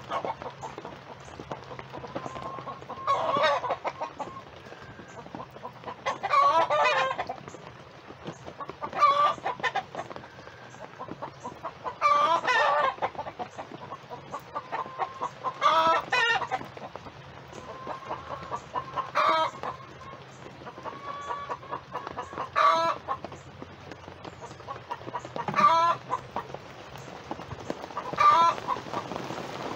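Chickens calling: a loud call repeated about every three seconds, nine times in all, with softer clucking between the calls.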